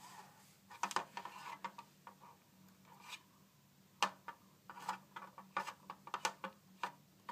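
A dog sniffing at and nudging a spinning-disc treat puzzle, with irregular small clicks, knocks and scrapes as the disc turns and shifts.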